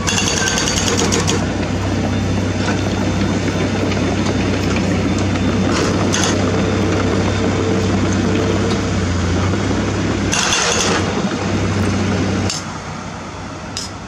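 Everdigm EHB06 hydraulic breaker on a Komatsu PC78US mini excavator hammering rock: a loud, fast, steady run of blows over the excavator's diesel engine. The hammering cuts off about twelve seconds in, leaving quieter machine noise.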